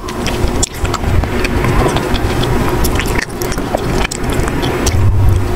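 Close-miked chewing of a frozen ice cream bar: dense, irregular crunching and crackling with a low rumble throughout.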